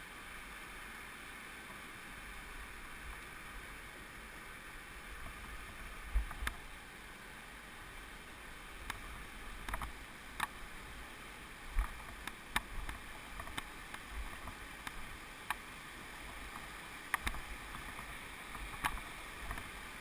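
Steady rush of a creek in flood, with irregular sharp knocks and clatters from about six seconds in as the canoe and its paddle are carried over rocks.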